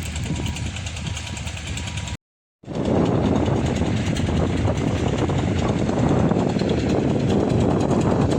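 Multi-cylinder engine driving a tin-mining suction pump, running steadily at a constant speed. About two seconds in the sound cuts out completely for half a second, then the engine noise returns slightly louder.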